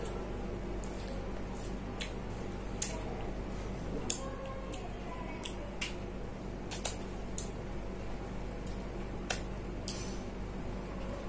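Wet eating sounds of rice and kadhi eaten by hand: scattered short smacks and squelches from lips and fingers, about a dozen, the loudest a little past four seconds in.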